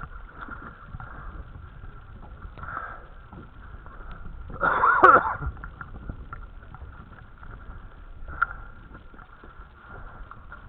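Small outboard motor on a dinghy running steadily, a constant whine over low rumble and water and wind noise. A brief loud shout comes about five seconds in.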